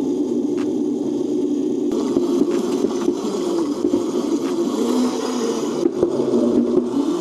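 Stock Razor Crazy Cart being ridden: its wheels rolling and scraping over the ground with the whir of its 250-watt, 24-volt electric drive, a steady noisy rumble with a few light ticks.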